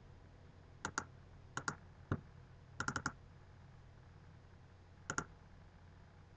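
Faint clicks of a computer mouse, mostly in quick pairs, with a single click and a quick run of four, over a low steady hum.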